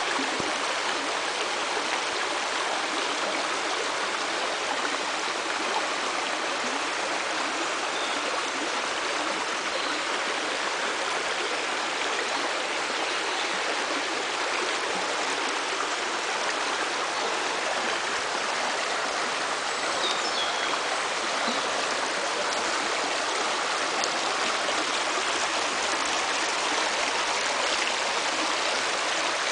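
Shallow rocky stream running over mossy stones: a steady, even rush of water.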